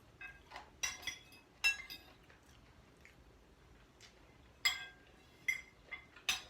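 Cutlery clinking against plates and dishes while eating: a handful of sharp, ringing clinks at irregular intervals.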